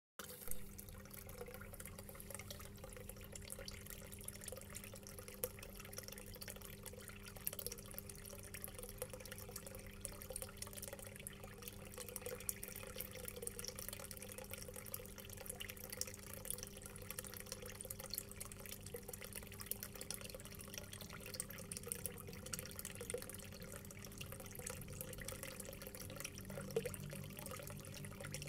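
Aquarium air stones bubbling and tank water splashing: a steady faint fizzing patter. A low steady hum runs underneath.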